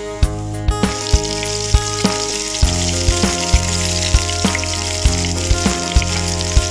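Chopped garlic and onion sizzling in hot oil in a frying pan, an even hiss that sets in about a second in. Background music with a steady beat plays alongside.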